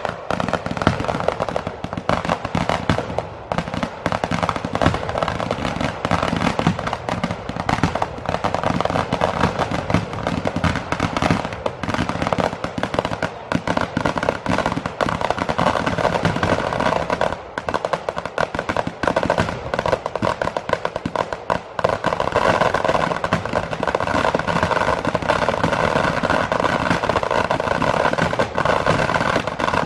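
A fireworks barrage of rapid, overlapping firecracker bangs and crackling with no gaps. About two-thirds of the way through it thickens into a denser, steadier crackle.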